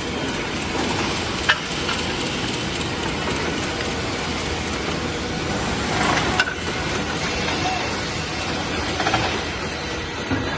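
CNC rip saw machine running in a workshop, a steady machine noise, with a sharp knock about a second and a half in and another about six seconds in.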